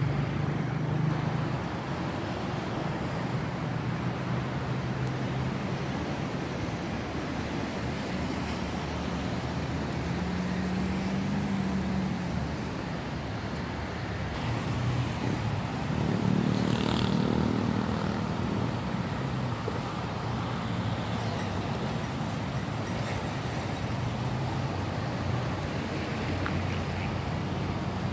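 Road traffic: a steady engine hum with the noise of passing vehicles, one louder vehicle going by about sixteen seconds in.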